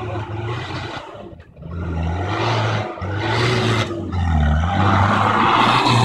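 A Toyota off-road 4x4's engine revving up and down under hard throttle on a dirt slope, with tyres churning the loose ground. It gets louder over the last few seconds as the vehicle comes close.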